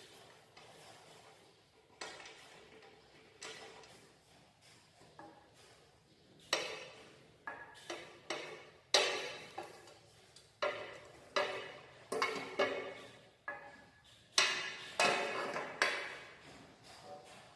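Metal parts of a manual push tile cutter clinking and knocking as they are handled and adjusted: faint taps at first, then about a dozen sharp, ringing metallic knocks at irregular intervals from about six seconds in.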